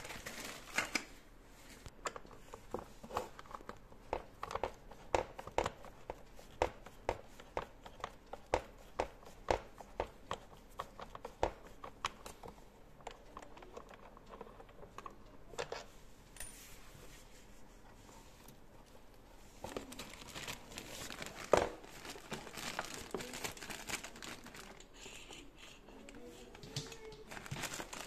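Hand-handling noises: a run of sharp clicks about twice a second through the first half, then crinkling, tearing rustles with one louder click.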